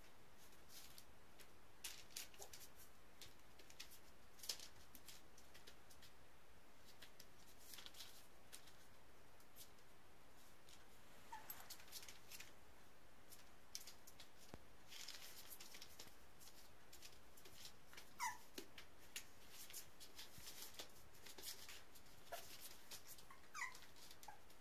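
Faint rustling and crinkling of newspaper under a 32-day-old puppy's paws as it moves about, with a few short, high, falling squeaks from the puppy.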